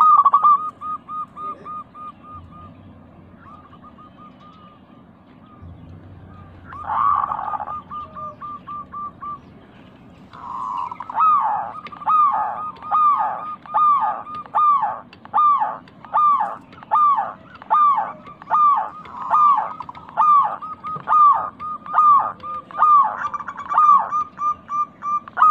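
Zebra doves (local perkutut) cooing: quick strings of short staccato notes, then from about ten seconds in a steady run of louder arched coos about two a second with fast notes between them.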